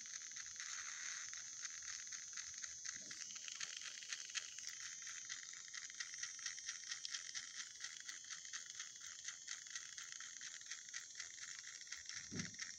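Small electric motor and gearing of a battery-powered toy train chassis running, a steady high whir with fine rapid clicking, switched on just at the start.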